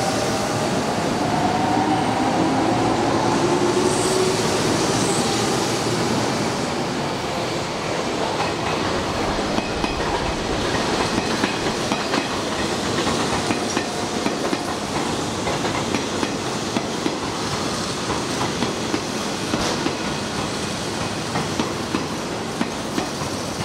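Hanshin electric train running at the platform. A whine rises in pitch near the start, then there is a steady rumble with repeated clacks of the wheels over rail joints.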